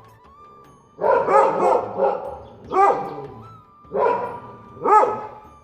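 Dog barking aggressively at rabbits: loud repeated barks, a quick run of two or three barks about a second in, then single barks roughly once a second. A thin steady tone sounds faintly between the barks.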